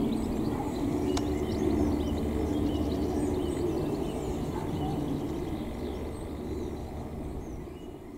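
Low drone of a distant aircraft, slowly fading away, with small birds chirping and singing in the trees.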